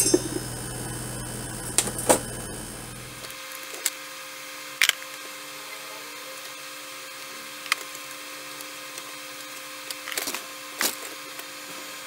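Scattered clicks and knocks of a wrench and metal parts being handled while working on a stand-up gas scooter's rear wheel, eight or so in all, spread irregularly. A steady low hum underneath cuts off suddenly about three seconds in.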